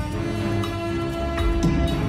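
Background music: a long held note over a low, pulsing beat.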